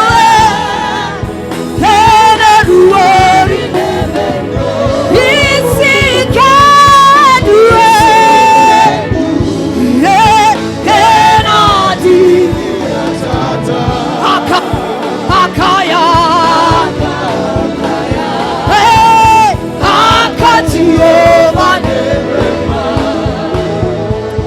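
Gospel worship singing: a lead vocalist singing long, wavering lines over sustained instrumental accompaniment, with choir voices.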